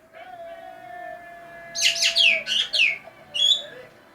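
Green magpie singing: a long, steady low whistled note. About two seconds in comes a quick run of loud, shrill notes that each sweep downward, and one more shrill call shortly after.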